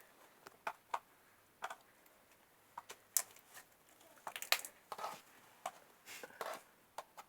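Homemade glue slime being stretched, stirred and handled, giving irregular short sticky clicks and pops at uneven intervals, a little more frequent in the second half.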